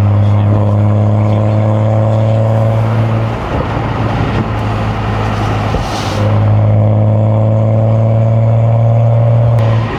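BMW M235i's turbocharged inline-six engine held at steady revs, loud and even. About three seconds in the steady note breaks up into rougher noise for some three seconds, then the steady note returns and drops out just before the end.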